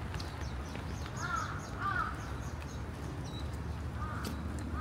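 Crow cawing: two calls close together about a second in, then fainter caws near the end.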